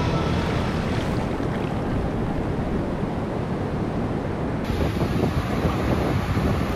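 Ocean surf washing up onto a sandy beach, a steady rushing wash of waves, with wind buffeting the microphone.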